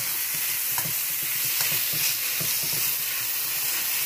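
Grated carrot and sliced onion sizzling in a little oil in a metal frying pan, with a slotted metal spatula scraping and turning them in irregular strokes a few times a second over a steady hiss.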